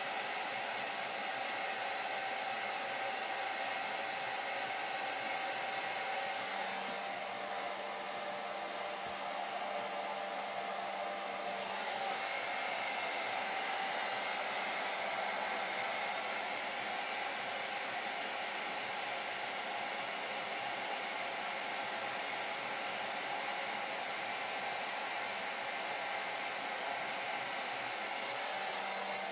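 Hair dryer running steadily: an even rush of air over its motor whine, the tone shifting slightly a couple of times partway through.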